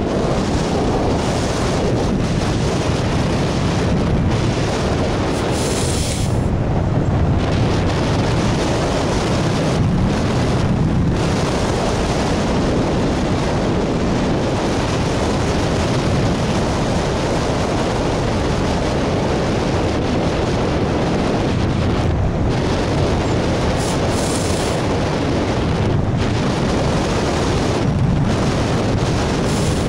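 Airflow of a hang glider in flight rushing over a wing-mounted camera's microphone: loud, steady wind noise with slight gusty swells.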